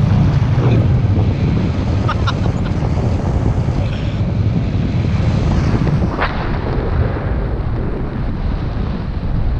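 Wind rushing over the microphone in flight under a paraglider, a loud, steady buffeting.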